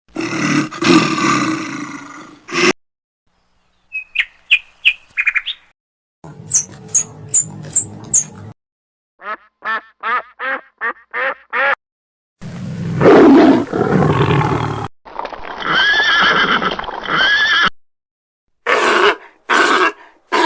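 A run of different animal calls, about seven short recordings in turn with a brief silence between each. They include high chirping calls and a quick series of repeated calls.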